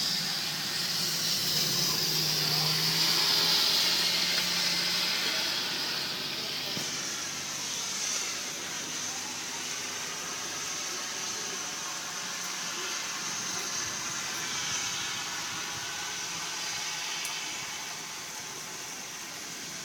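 Heavy rain hissing steadily, louder for a few seconds near the start and easing a little afterwards.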